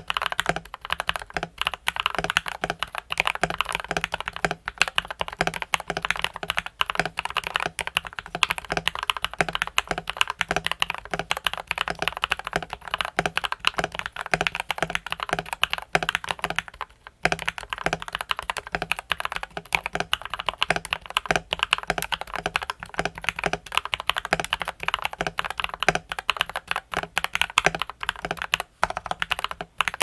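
Fast, continuous typing on a TM680 mechanical keyboard with factory-lubed Gateron Milky Yellow Pro linear switches on a steel plate, fitted with PE foam, the tempest mod and case foam. Dense, rapid keystroke clacks run with a brief pause a little past halfway.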